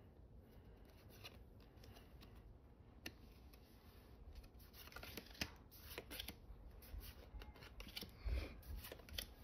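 Faint clicks and light sliding of Pokémon trading cards as they are flipped one behind another in the hands, the clicks coming more often in the second half.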